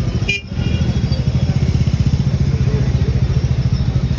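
Motorcycle engine idling close by, a steady fast throb with traffic noise around it; the sound drops out briefly about half a second in.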